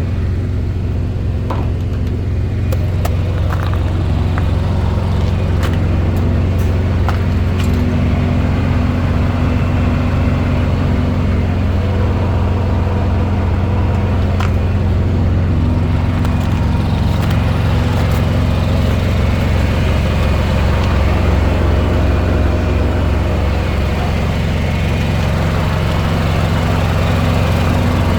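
Semi truck's diesel engine running steadily, a low, even drone with little change in pitch.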